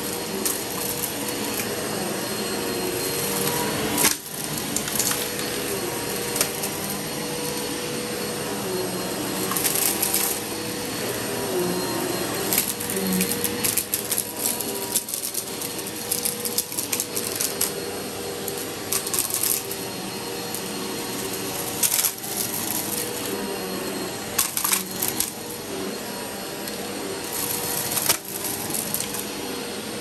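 Upright bagless vacuum cleaner running over carpet, its motor humming steadily, with short bursts of crackling and rattling every few seconds as bits of debris are sucked up.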